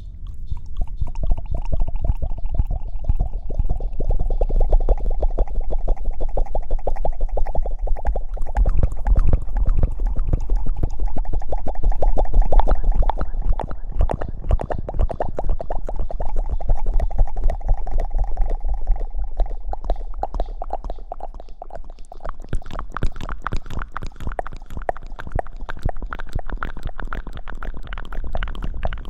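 Close-miked ASMR rustling and scrubbing: a dense, rapid crackle with heavy bass. About three quarters of the way through it turns brighter and thinner.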